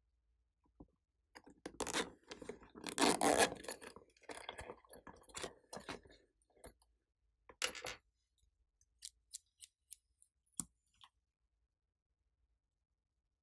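Plastic bow-shaped makeup case being handled and opened: a few seconds of scraping and rubbing, loudest about three seconds in, then a scatter of light clicks and taps from small plastic cosmetic parts.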